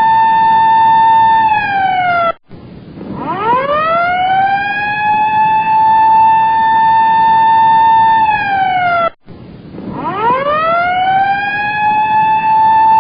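Siren holding a steady high tone, then sagging in pitch and cutting off, then winding back up from a low pitch to the same steady tone over a second or two. The cycle repeats about every seven seconds and happens twice here.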